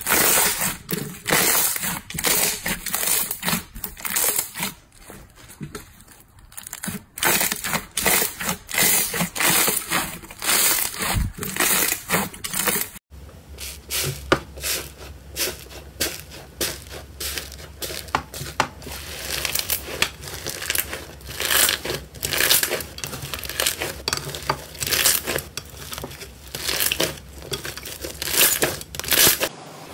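Slime being squeezed and pressed by hand, giving dense, irregular crackling and popping. About 13 seconds in the sound changes as a clear blue slime gives way to a fluffy 'sponge iceberg' slime, with a faint steady hum under the crackles.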